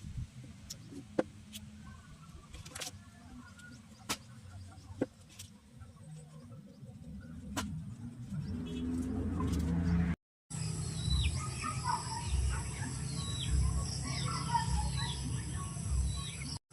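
Scattered light clicks and taps over a low hum, then, after a brief cut about ten seconds in, birds chirping over a steady high tone and low background hum.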